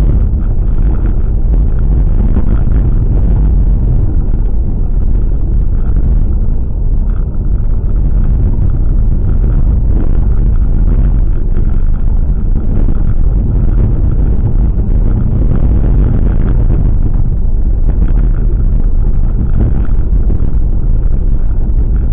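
Steady low rumble of a car on the move, running evenly throughout.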